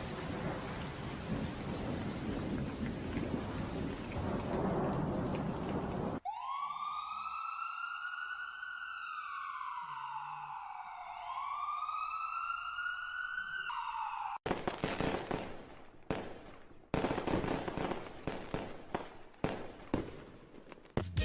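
A steady rushing noise like heavy rain, which cuts off about six seconds in. A wailing siren-like tone with strong overtones follows, rising and falling twice, then ends abruptly. The last part is a run of irregular sharp bangs and cracks.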